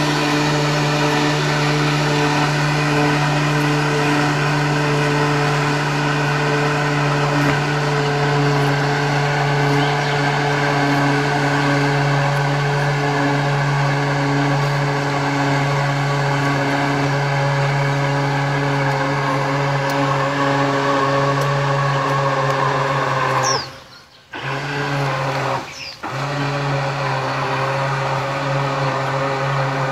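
Electric motor of a remote-controlled net-towing boat running with a steady whining hum, cutting out briefly twice near the end and starting again.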